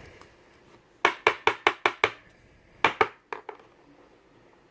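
A quick run of about six sharp clicks or taps within a second, then two more close together and a fainter one: small hard objects being handled on a tabletop.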